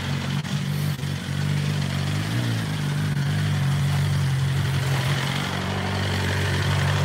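BMW S1000RR inline-four engine idling steadily, with one brief throttle blip about two seconds in.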